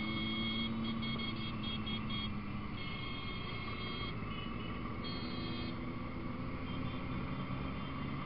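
Motorcycle engines running at a steady cruise with wind rushing past, heard from onboard a moving motorcycle in a group of bikes; the engine note sinks slightly early on and rises again near the end.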